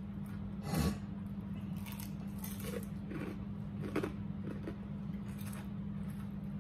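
Close-up eating sounds of crispy fried chicken being torn apart and chewed: a run of short crunches and mouth noises, the loudest about a second in. A steady low hum runs underneath.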